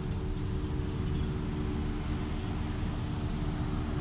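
Lake passenger ferry's engine running steadily while under way: a low drone with a few steady hum tones, over an even rush of wind and water.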